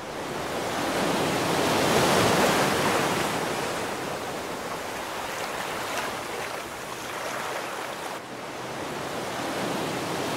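Sea waves washing in, a steady rushing noise that swells up at the start, is loudest about two seconds in, then rises and falls gently.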